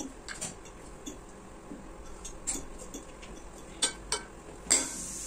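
Spoons and forks clinking against ceramic bowls and plates as people eat, light scattered clinks with a few sharper ones near the end.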